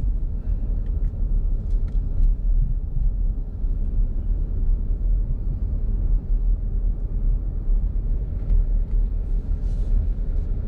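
Steady low rumble of a car driving on a paved road, engine and tyre noise heard from inside the cabin, with a few faint clicks.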